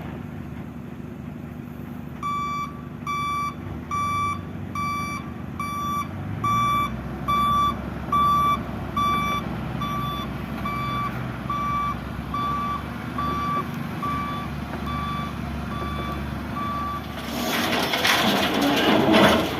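Heavy equipment's reversing alarm beeping at a steady pace, about one and a third beeps a second, over a running diesel engine. It stops near the end, where a loud rushing, rattling noise rises.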